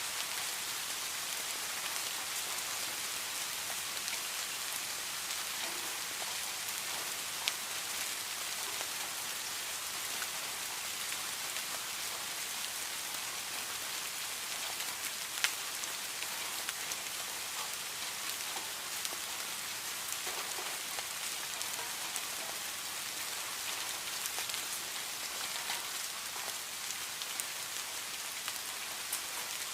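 Steady heavy rain falling, an even hiss with scattered sharper drop impacts, two of them more distinct, at about a quarter and a half of the way through.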